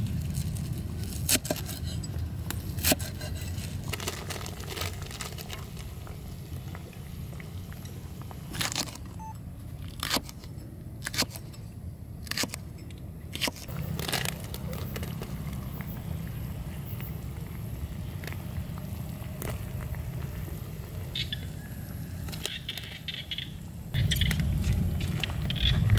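A cleaver chopping on a wooden chopping board: spring onions, then green chillies, in separate cuts that each land as a sharp knock, about a second apart, over a steady low rumble. About two seconds before the end, the low rumble grows louder.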